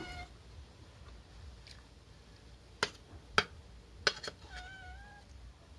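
Metal spoon clinking on a ceramic plate while scooping rice: a few sharp clicks about three to four seconds in, over low room noise, then a short faint tone.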